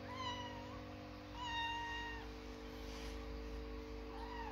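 Kittens mewing: three high, thin mews, the second held longest and the last starting near the end.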